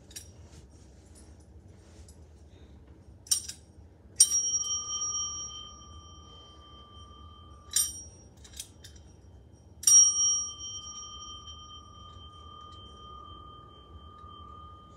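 Small metal bell struck twice, about four and ten seconds in. Each strike leaves a long, clear ringing tone; the first ring is cut off short by a knock a few seconds later, while the second rings on. Light knocks and taps come between the strikes.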